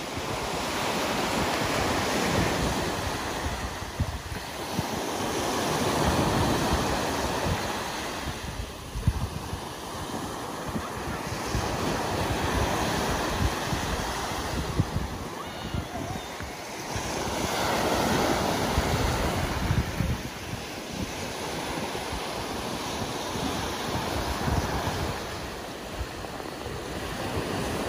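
Sea waves breaking and washing up a sandy beach, the surf rising and falling every few seconds, with wind buffeting the microphone.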